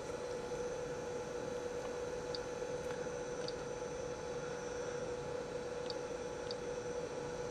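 Steady electrical hum over room noise, with a few faint short clicks from the keypad buttons of an Agilent 33250 function generator being pressed to enter an amplitude.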